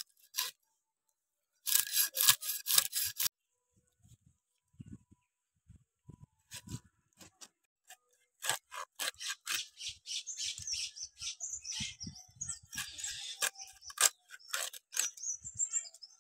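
A silver carp being scaled and cut against a fixed upright bonti blade, in quick runs of rasping scraping strokes. There is a short run about two seconds in, then a longer, denser stretch from about eight seconds on.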